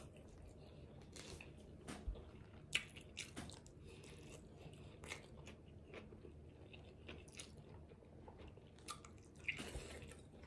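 Faint close-up chewing of a Chipotle burrito bowl, with scattered sharp mouth clicks and the fork now and then working in the bowl.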